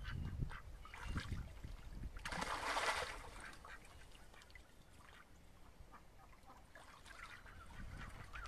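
Silver Appleyard ducks on a shallow pond: a few quacks, then one loud splash lasting under a second a little over two seconds in, and a quieter stretch of water dribbling before more quacking near the end.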